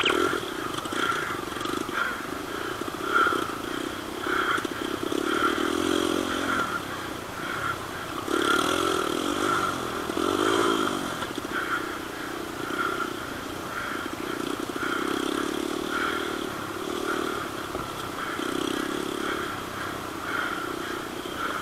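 Dirt bike engines running and revving on an off-road motocross course, the engine note rising and falling over and over.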